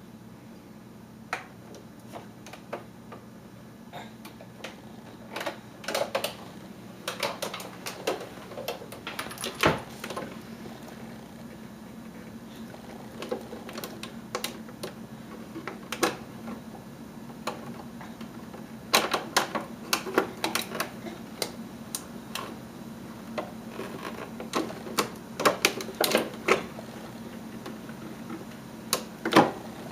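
Irregular sharp clicks and knocks, some in quick rattling clusters, over a steady low hum.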